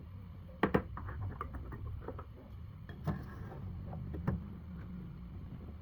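A few sharp knocks and clicks over a low steady hum: the loudest is a double knock about half a second in, with single knocks about three and four seconds in.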